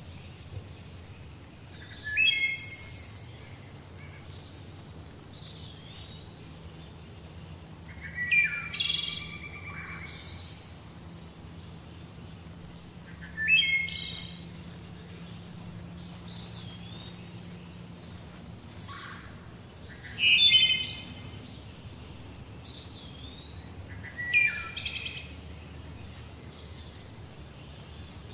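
A songbird singing a short, loud, high phrase five times, about every five seconds, over fainter chirps of other birds. A steady thin high whine, like an insect, runs underneath.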